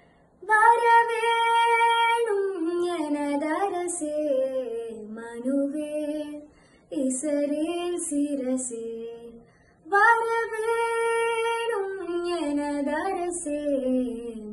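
A girl singing solo and unaccompanied, a slow melody with long held notes that bend and slide down at the ends of phrases. She pauses briefly for breath about six and a half seconds in and again near ten seconds, and the opening phrase comes round again after the second pause.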